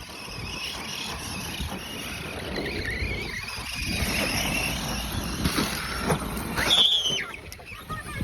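Remote-control car driving over the ground: a continuous rough rumble of wheels with a high motor whine that wavers in pitch, and a short high squeal about seven seconds in.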